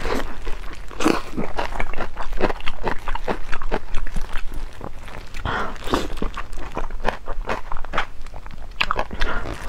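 Close-miked eating of a pork skin roll: biting and chewing with a quick run of short crunching and mouth sounds.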